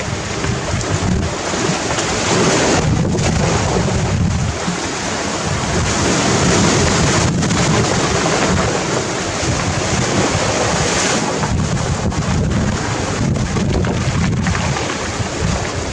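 Sea waves breaking and washing over a gravel and pebble beach in a loud, continuous surf that swells and eases, with wind buffeting the microphone.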